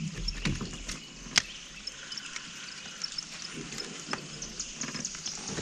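Light clicks and small knocks of fishing tackle being handled in a boat, with one sharper click about a second and a half in, over faint high chirping.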